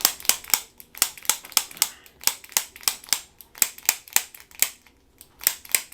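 Chiropractic activator adjusting instrument firing a rapid series of sharp clicks, about four or five a second, with a short pause near the end, each click a spring-loaded thrust against a joint.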